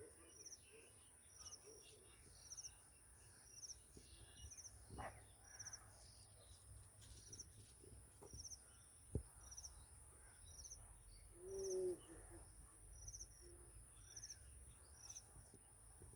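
Faint high chirps, each a quick group of a few pulses, repeating about once a second over a steady high-pitched hiss. A brief, louder, lower sound comes about three-quarters of the way through.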